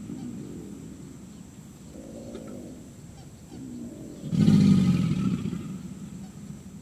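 American alligator bellowing: a loud, low, rumbling call about four seconds in that lasts under two seconds and fades, with fainter, shorter rumbling calls a couple of seconds before it.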